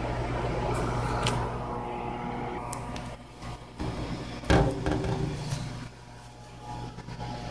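A steady low hum in a small room, with a few scattered knocks and clicks. The loudest knock comes about four and a half seconds in.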